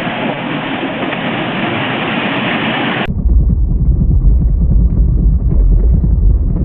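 Loud rushing of floodwater, an even hiss that cuts off about three seconds in to a heavier, deeper rumble of torrent or wind noise.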